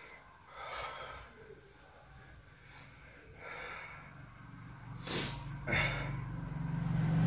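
A man breathing heavily through his nose, with two loud sniffs or snorts about five and six seconds in, then a low closed-mouth hum of voice near the end.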